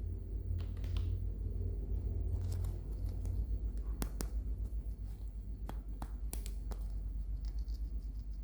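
Scattered light clicks and taps of hands handling plastic toy packaging, about a dozen spread irregularly, over a steady low hum.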